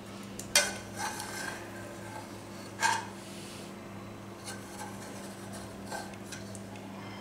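Steel spoon scraping and clinking against a metal pot while scooping the set cream layer off chilled milk. There are two sharp clinks, about half a second in and near three seconds, then lighter taps. A steady low hum runs underneath.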